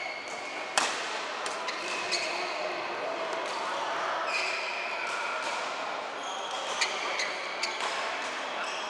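Badminton shoes squeaking on a rubber court mat, with a few sharp racket-on-shuttlecock hits; the loudest hit comes about a second in. The sounds echo in a large sports hall.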